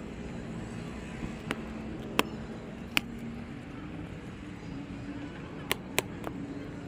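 A few sharp clicks and knocks, about five in all, as a plastic-wrapped helmet box is handled and freed from the back of a motorcycle beside its top box.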